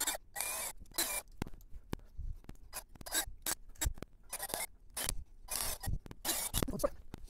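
Hands working small plastic parts on a quadcopter frame: short, irregular scraping and rubbing sounds, about half a dozen brief bursts.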